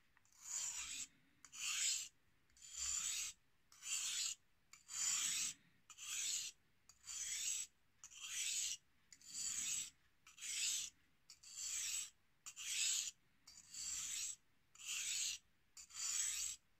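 Carving knife blade drawn across the 3000-grit side of a wet 1000/3000 combination whetstone in edge-trailing, stropping-type polishing strokes: a short scrape about once a second, some sixteen strokes in a row.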